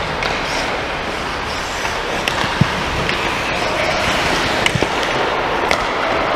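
Ice hockey play: a steady scraping hiss of skates on the ice with several sharp clacks of sticks and puck, the loudest about two and a half seconds in.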